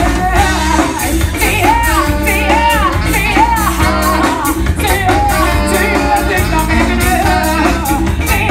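Live band performing a song: a woman sings lead over drums, bass and electric guitar.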